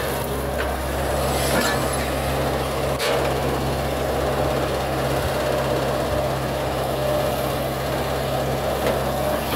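Diesel engine of a Hitachi hydraulic excavator running steadily under working load as it digs, a steady low hum, with a couple of sharp knocks from the machine in the first few seconds.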